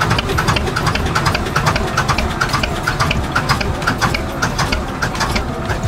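1960s Armstrong Siddeley two-cylinder diesel engine being hand-cranked, turning over in an even rhythm of about four beats a second over a low rumble, not yet catching.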